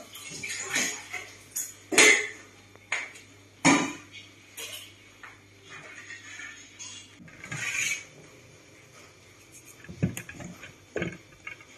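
Dishes and utensils clattering as they are washed in a kitchen sink: a run of separate sharp clinks and knocks, loudest in the first four seconds, with a few softer clicks near the end.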